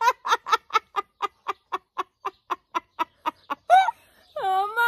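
Hearty cackling laughter: an even run of short 'ha' pulses, about five a second, fading slightly. About four seconds in it breaks off into a long, wavering high-pitched laugh.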